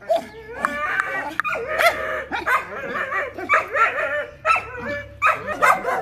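Dogs barking repeatedly in short, high yelping barks, about two a second.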